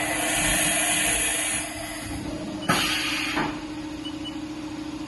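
2012 Haas VF-5/50 vertical machining center running with a steady hum. A hiss drops away about one and a half seconds in, and a second hiss starts with a sharp click a little under three seconds in. Faint short beeps come near the end.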